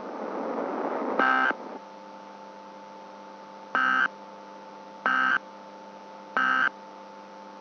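Emergency Alert System end-of-message data bursts: four short, buzzy digital screeches, the last three about a second apart, marking the close of the alert. A steady electrical hum runs between them, after a hiss that rises in the first second.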